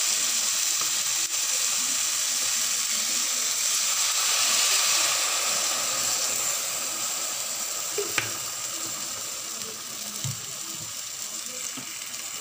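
Water poured from a plastic bottle into a hot pan of frying okra and vegetables, which sizzles and hisses, the sizzle slowly dying down in the second half. A light click about eight seconds in.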